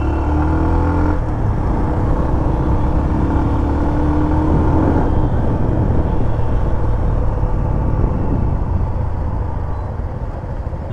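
A vehicle's engine running on the move, with road and wind noise; its pitch rises gently over the first few seconds as it speeds up. The engine runs smoothly, without the noise that the service has just cured.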